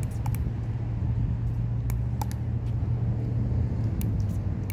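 A steady low motor hum, with a few sharp clicks over it.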